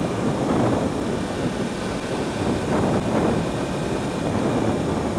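Steady wind rush over a helmet-mounted microphone while riding a 2015 Yamaha YZF-R1 at road speed, with the bike's engine and tyre noise underneath.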